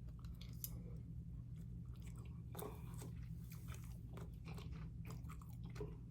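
A person chewing a mouthful of basil fried rice close to the microphone, with soft wet mouth clicks and smacks scattered throughout, over a steady low hum.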